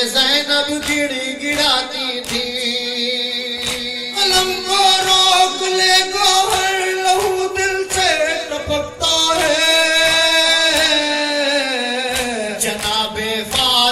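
Male voices singing a noha, an Urdu mourning lament, into microphones, holding long notes that slide from one pitch to the next. Under the singing runs a steady rhythm of sharp beats.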